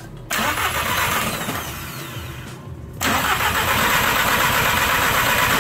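Car engine cranking over on its starter with the fuel shut off, so it turns but does not fire, as for a compression test. The cranking runs in two stretches of about two and a half seconds each, with a brief break near the middle.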